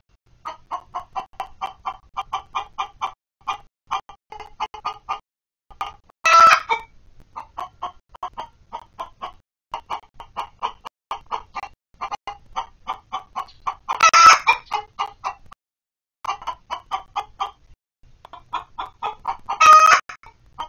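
Hens clucking in a quick steady run of short notes, about five a second, with three louder, longer squawks about six, fourteen and twenty seconds in.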